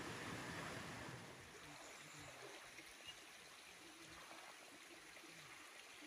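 Steady rushing of water, an even noise with no distinct splashes, dropping somewhat in level about a second in.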